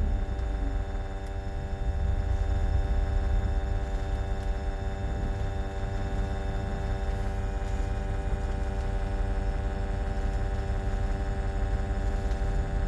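BMW Z3's 2.2-litre M54 straight-six idling steadily as the revs settle back from a rev, with an irregular low beat underneath. The car is being checked for a misfire.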